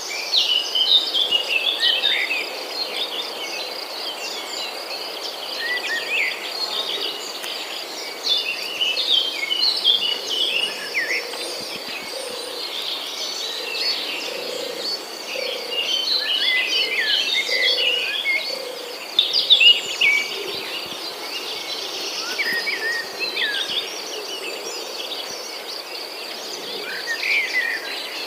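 Many birds chirping in a busy, overlapping chorus, over a steady high insect buzz that never stops.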